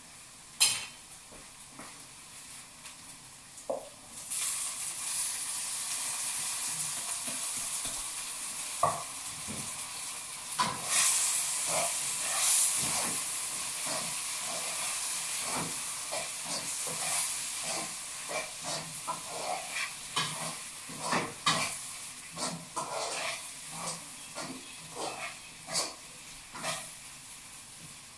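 Food sizzling in a hot frying pan: a steady hiss that sets in suddenly about four seconds in, with a utensil clicking and scraping against the pan as the food is stirred. A sharp clink is heard about a second in.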